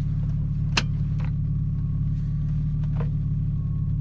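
Car engine idling steadily with a low drone. A sharp click comes just under a second in, and a couple of fainter clicks follow.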